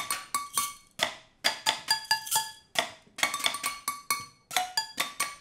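Kitchen pots and pot lids struck with sticks and a spatula as percussion: a brisk, even rhythm of sharp hits, each ringing briefly.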